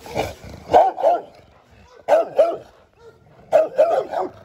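Rottweiler barking repeatedly: barks in pairs, then a quicker run of four near the end.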